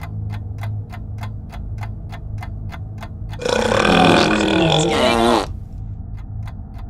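A long, loud burp about three and a half seconds in, lasting about two seconds, its pitch wavering and dropping. Before it, faint steady ticking, about three a second, over a low hum.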